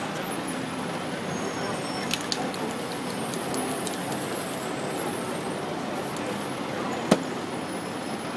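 Steady city street traffic noise, with a few light clicks about two seconds in and a single sharp knock about seven seconds in.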